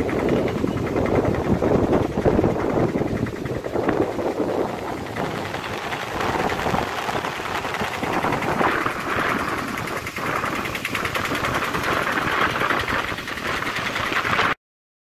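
Fast-flowing floodwater rushing, a loud, rough noise that turns higher and hissier about five seconds in and cuts off suddenly near the end.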